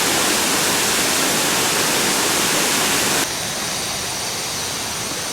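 Waterfall: a steady, loud rush of falling water that drops abruptly to a lower level about three seconds in.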